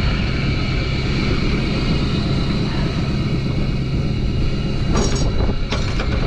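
Engine running steadily. A sharp metallic clank rings out about five seconds in, and another knock or two follows shortly after.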